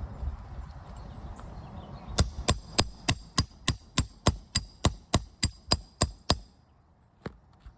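Roofing hammer striking a steel nail-pulling tool to work out a roofing nail: about fifteen sharp, ringing metallic blows at about three a second, then one more after a short pause.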